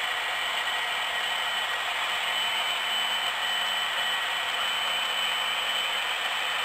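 HO-scale model freight cars rolling past on the track: a steady clattering rush of small wheels on the rails, with a faint steady whine.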